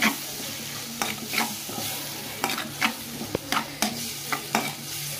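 Chopped tomatoes and onions sizzling in oil in a steel kadai, being cooked down until soft. A spoon scrapes and clinks against the pan, roughly twice a second, as they are stirred.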